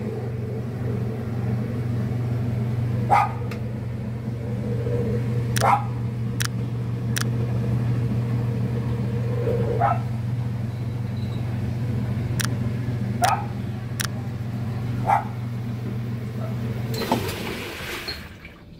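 Whirlpool direct-drive top-load washing machine running, its motor giving a steady low hum with scattered sharp clicks and knocks every second or so. The motor stops about seventeen seconds in, followed by a brief hiss.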